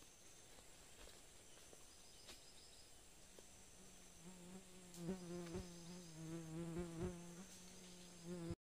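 A flying insect buzzing close by, coming in about four seconds in, wavering in pitch as it moves, and cutting off abruptly just before the end. Under it are faint steady high insect calls and a few soft snaps from the forest floor.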